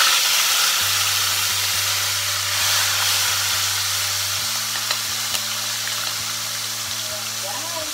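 A slab of boiled pork belly deep-frying in hot oil: a loud, steady sizzle that eases off slowly, with a few small pops of spattering oil.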